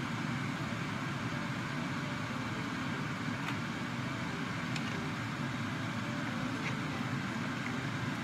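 Steady low rumbling noise with a few faint light ticks.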